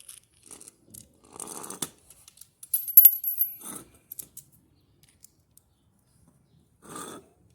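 Metal washing-machine parts being handled and fitted: scrapes and small clicks, with a bright ringing metallic clink about three seconds in.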